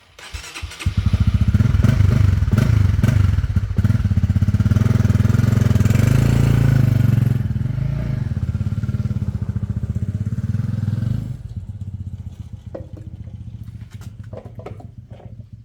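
A motorcycle engine catches about a second in and runs with a steady, even pulse. It steps down in level partway through, drops off sharply about eleven seconds in, and carries on faintly after that, as if pulling away.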